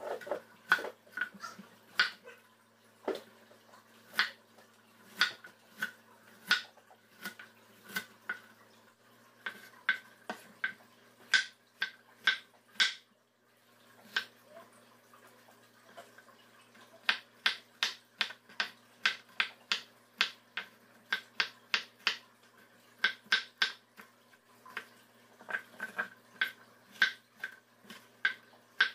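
Chef's knife cutting an onion and then bell peppers on a wooden cutting board: a run of sharp knocks, one for each stroke of the blade onto the board. The knocks break off for about three seconds midway, then come quicker, two or three a second.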